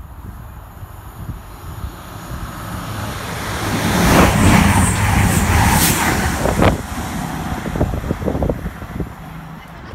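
CrossCountry Voyager diesel multiple unit approaching and passing at speed, its underfloor diesel engines and wheels swelling to a loud rush about four seconds in, then fading as it draws away.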